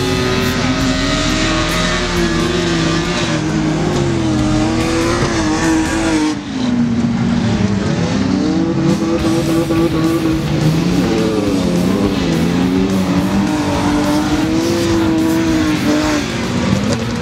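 Several stock-car engines racing on a dirt track, their pitch rising and falling as they rev up and back off, with a brief dip about six seconds in.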